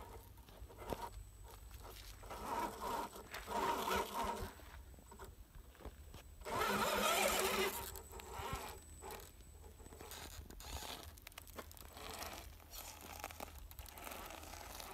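Battery-powered RC rock crawler climbing a dirt-and-rock slope: its motor whirring and tires scraping and scrabbling over the ground, with a louder burst of grinding lasting about a second, some seven seconds in.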